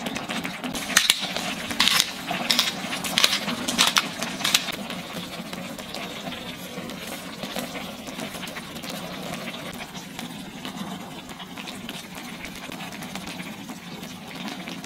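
Shakshuka's tomato sauce simmering and bubbling in a frying pan, with about six short, sharp scrapes in the first five seconds as Grana Padano cheese is grated over it.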